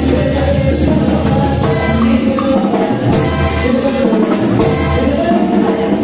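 Live band music with drum kit and timbales, cymbal strokes and a steady, heavy bass line.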